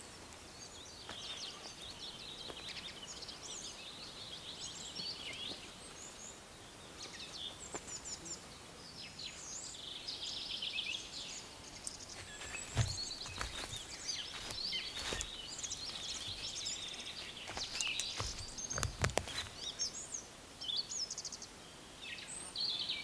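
Songbirds chirping and trilling, with several calls overlapping, against a quiet outdoor background. A few dull thumps come in the second half.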